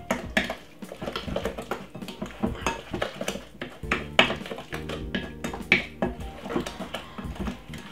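Wooden spoon stirring mashed banana and sugar in a glass mixing bowl, knocking and scraping against the glass in an uneven run of clicks.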